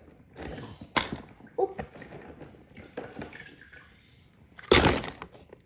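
Water splashing and sloshing as toys are moved about in it, with scattered knocks and clicks; the loudest splash comes near the end.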